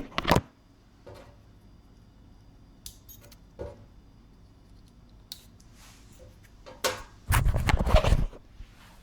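Handling sounds: a sharp knock or two as the phone is set down, then scattered small clicks and taps while the thermostat's wires are being reconnected, and about seven seconds in a second of loud clattering and rustling close to the microphone.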